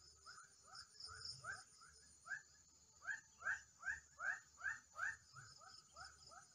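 An animal calling in a long run of short, rising notes, about three a second, growing louder to a peak midway and then fading, over a steady high-pitched drone.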